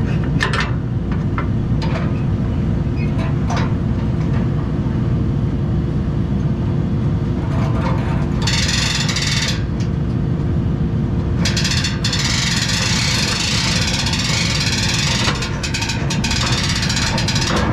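Diesel engine of a nearby combine harvester running steadily, with a steady low hum. A few light metallic clicks come in the first few seconds, and a high hiss starts about halfway through and runs on to the end.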